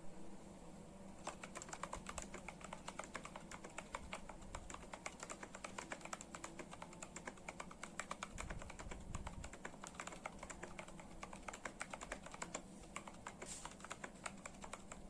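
Typing on a mechanical keyboard fitted with PBT OEM-profile keycaps: a fast, continuous clatter of keystrokes that starts about a second in, thinning briefly near the end.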